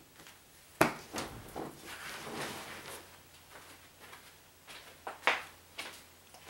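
A man getting up out of a leather office chair: a sharp knock about a second in, then a couple of seconds of rustling and creaking, and a few more knocks near the end.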